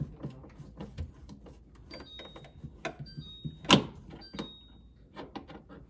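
Plastic parts of an LG refrigerator's water filter housing assembly clicking, knocking and scraping as they are handled, with one sharper knock a little past the middle.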